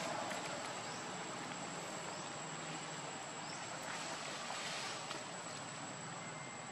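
Steady outdoor background hiss with a constant thin high-pitched tone, and a few faint short rising chirps in the first few seconds.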